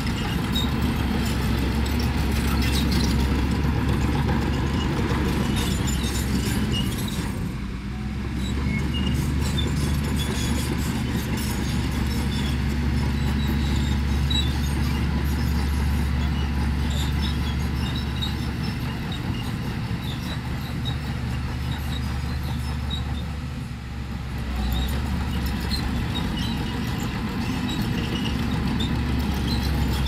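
Heavy diesel engine of earthmoving machinery running steadily under work, with a deep hum and faint scattered clicks. It eases off briefly about eight seconds in and again near 24 seconds, then comes back up.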